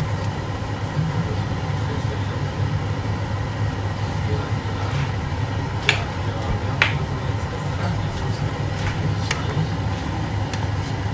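Steady low kitchen hum while a pan of pork simmers in Sprite, with two sharp plastic clicks about six and seven seconds in as the ketchup squeeze bottle is handled.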